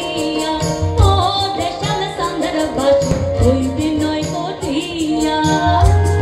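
A woman singing a Bengali song live into a microphone, with keyboard and drum accompaniment keeping a steady beat.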